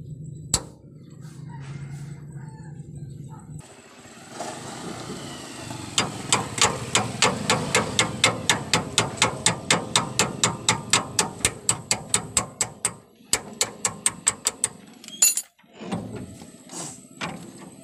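Hand tools working a steering tie rod end. A long run of sharp metallic clicks comes evenly, about four a second, for roughly seven seconds. A few more clicks and one louder knock follow near the end.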